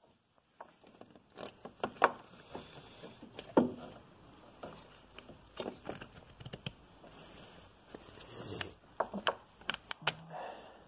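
Pliers clicking and scraping on a metal hose clamp as it is worked onto a rubber coolant hose at the thermostat housing. The clicks and knocks come irregularly, the loudest about two and three and a half seconds in, with a quick run of clicks near the end.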